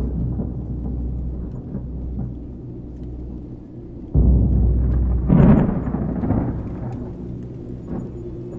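Dark cinematic soundtrack: a low drone with deep booming hits that fade into a rumble, a new hit landing about four seconds in.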